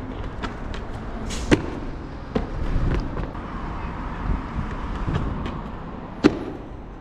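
Steady outdoor street noise with a few scattered sharp knocks, then one loud sharp impact about six seconds in as a freerunner lands a jump down onto paving slabs, landing hard enough to fall.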